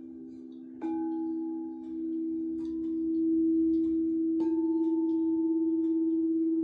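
Crystal singing bowls ringing in a steady low hum with a slow pulsing beat, struck twice, about a second in and again past four seconds in; each strike adds a higher ringing tone that slowly fades.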